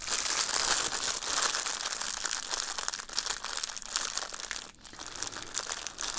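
Thin clear plastic packaging bag crinkling as it is handled and squeezed in the hands. It is a dense run of small crackles, with a short lull about three quarters of the way through.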